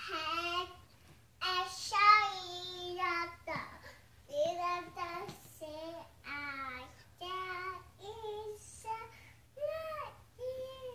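A toddler girl singing on her own with no accompaniment, in short phrases with brief gaps between them.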